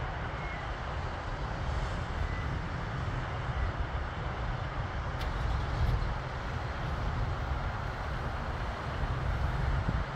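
Steady low rumble of a distant business jet on final approach, with no distinct whine or change in pitch.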